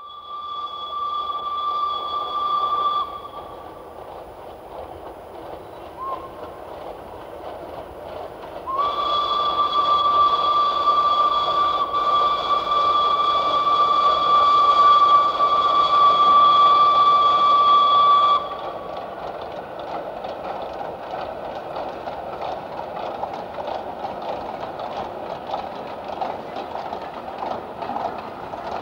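Steam locomotive whistle blowing one high steady note for about three seconds, then a longer blast of about ten seconds, over the noise of a moving train. After the second blast the train runs on with a quick rhythmic clatter.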